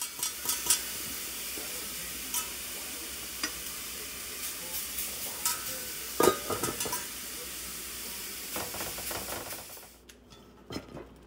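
Casserole sizzling under the lid of a stainless steel Saladmaster brazier: a steady hiss with scattered clicks and a metal clunk of the lid being handled about six seconds in. The hiss dies away near the end.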